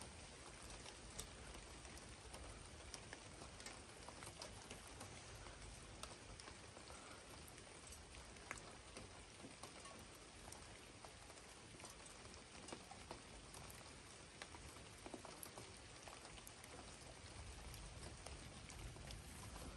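Rain falling: a faint, steady hiss with scattered ticks of individual drops.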